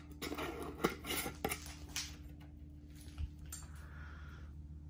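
A silver metal screw-top lid being twisted onto a plastic jar of shredded truck mulch. Several light clicks and scrapes come in the first two seconds, then it goes quiet.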